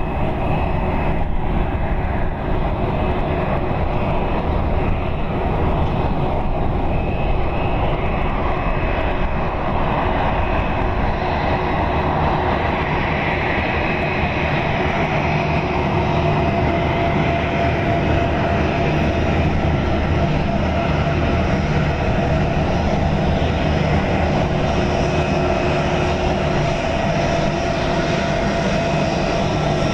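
Airbus A321-231's twin IAE V2500 turbofan engines at taxi power as the airliner rolls past on the taxiway: a steady jet rumble with held whining tones above it.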